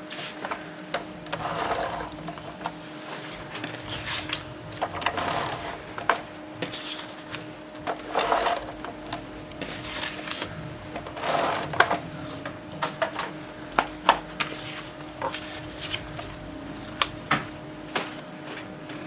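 Paper and card stock being handled and layered: repeated rustling and sliding scrapes, each up to about a second long, with many sharp taps and clicks as the pieces are set down and pressed together. A steady low hum runs underneath.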